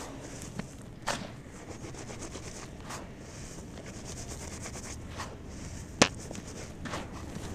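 Dry crumbly cement crumbled and sifted through bare hands in a bowl: a steady gritty trickle of falling grains, with a few sharp clicks, the loudest about six seconds in.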